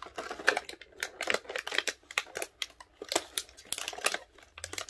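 Packaging crinkling and rustling as it is handled: a dense, irregular run of crackles and small clicks.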